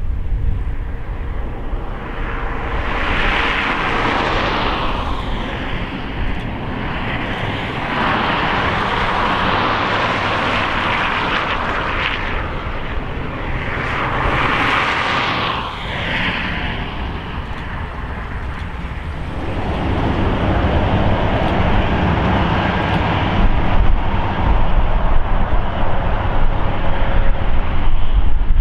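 South African Class 19D 4-8-2 steam locomotive hauling a passenger train. Its exhaust and running gear make a continuous rush of sound that swells and fades, growing louder in the last third.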